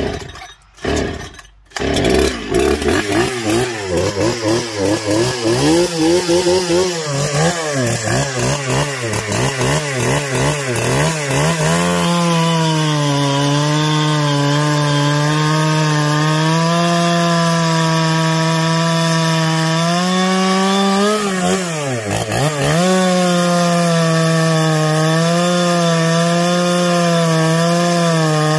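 A freshly rebuilt Husqvarna 365 SP two-stroke chainsaw is pull-started and catches about two seconds in. It runs with uneven, wavering revs for ten seconds, then holds steady high revs while cutting through a log. Its revs dip sharply and recover a little past twenty seconds in.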